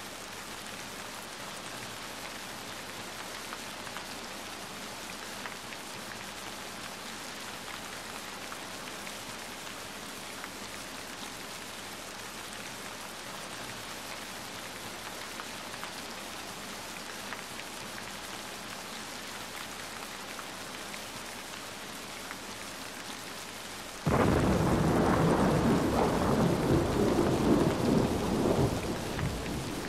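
Steady rain hiss mixed with the faint crackle of a burning log fire. Near the end, a sudden loud, low thunder rumble breaks in and fades over several seconds.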